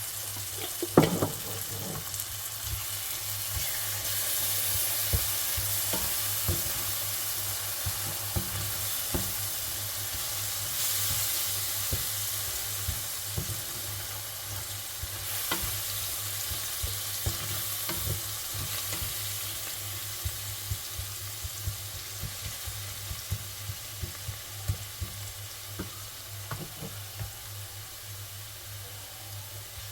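Onion, garlic and tomato paste and puree frying in a pan, sizzling steadily while a spoon stirs them, knocking and scraping against the pan at irregular moments; a sharper knock comes about a second in.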